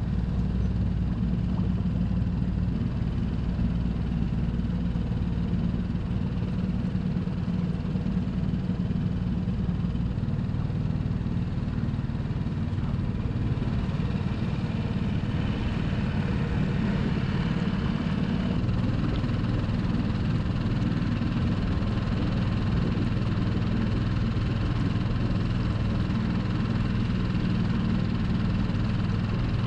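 Small outboard motor on a skiff running steadily under way. Its low engine note shifts slightly a couple of times.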